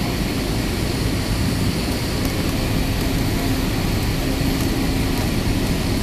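Steady cabin noise of an Airbus A320neo airliner in flight, heard from a window seat over the wing: its Pratt & Whitney PW1100G geared turbofan engines and the airflow make an even, deep noise with a faint steady hum.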